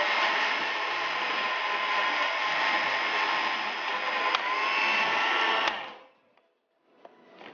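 Countertop blender motor running at speed, blending fruit juice with ice and mint. A click about four seconds in, then the motor switches off just before six seconds in.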